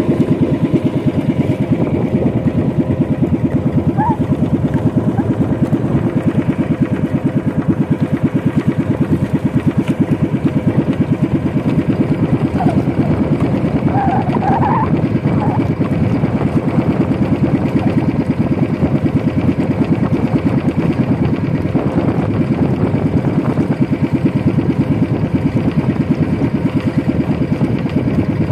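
Small engine of a motorized outrigger boat (bangka) running steadily underway, a fast, even putter.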